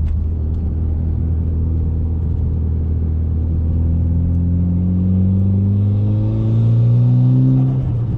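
Mitsubishi Lancer Evolution X's turbocharged 2.0-litre four-cylinder engine, with an STM cat-back exhaust, pulling through a gear: the engine note climbs steadily and grows louder from about three seconds in, then drops sharply near the end as the next gear is taken.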